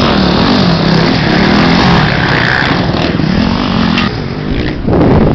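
Off-road race motorcycle engine revving, its pitch rising and falling again and again as the throttle is worked. A louder rush of noise comes near the end.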